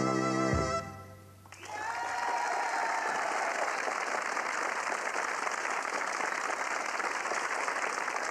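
A dance band's final held chord, with brass, ends with a last low note in the first second. After a brief hush, an audience breaks into steady applause.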